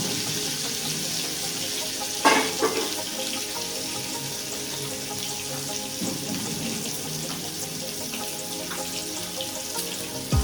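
Boiled eggs frying in hot oil with turmeric and chili powder: a steady sizzle, with one sharp knock about two seconds in.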